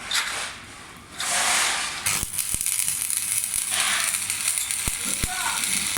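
Electric arc welding on iron: after two short hissing bursts, the arc catches about two seconds in and settles into a steady crackling sizzle with a few sharp pops.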